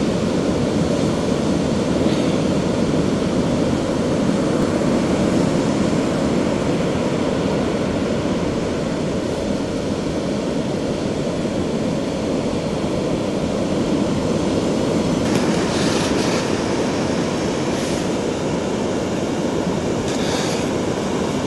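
Steady roar of ocean surf breaking on a sandy beach. A few short scrapes in the last six seconds, with the last ones about a second before the end, fit a plastic toy shovel digging into sand.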